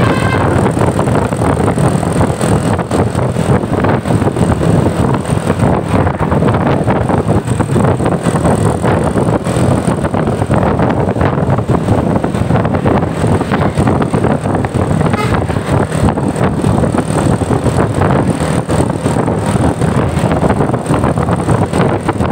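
Loud, steady road noise of passing buses, engine and tyre rumble. A multi-tone bus horn cuts off right at the start, and a faint short horn-like tone sounds about fifteen seconds in.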